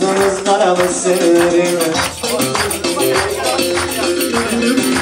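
Turkish folk dance tune (oyun havası) played live: a melodic line over a steady, rhythmic percussion beat.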